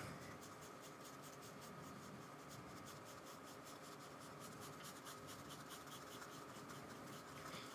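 Faint, quick, regular scratching of a paintbrush dabbing and scrubbing acrylic paint onto paper.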